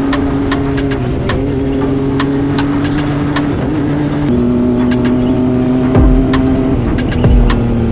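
Side-by-side UTV engine running under way over sand, its pitch stepping and then falling away in sweeps, with heavy low rumbles near the end.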